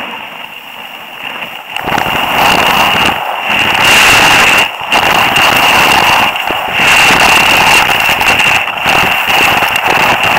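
Rushing noise of skiing downhill at speed: wind buffeting the camera's microphone mixed with skis scraping over packed snow. It turns loud about two seconds in and drops out briefly a few times.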